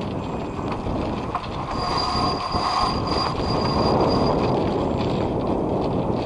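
Jib sheet squealing under load on a cockpit winch for a couple of seconds as the jib is hauled in during a tack on a small sailing yacht, over a steady hiss of wind and water.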